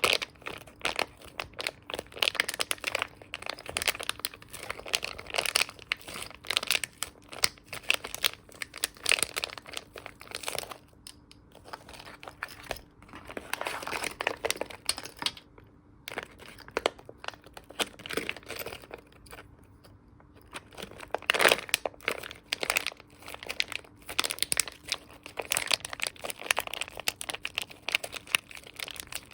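Squishy toys being squeezed and handled by hand: a close run of crinkling, crackling sounds in bursts, with a few short lulls.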